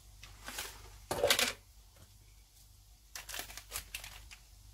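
A spoon scraping and tapping as yogurt is spooned onto raw chicken in a glass bowl: one louder scrape about a second in, then a quick run of small clicks near the end.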